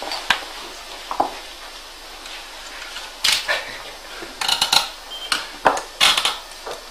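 Irregular sharp clicks and metallic clinks in small clusters, the busiest about three, four and a half and six seconds in.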